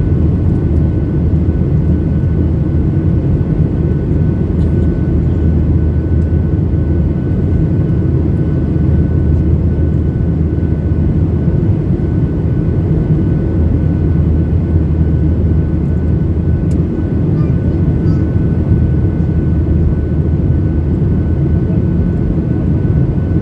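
Steady cabin drone of a Boeing 737-800 in flight: the roar of its CFM56 engines and the airflow past the fuselage, heavy and low, with a faint steady high whine running through it.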